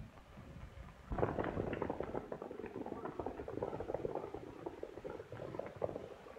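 Hoofbeats of several horses galloping: a rapid, irregular clatter of hoof strikes that starts about a second in and keeps going.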